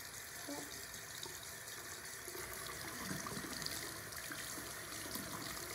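Bathroom sink tap running, a steady stream of water into the basin.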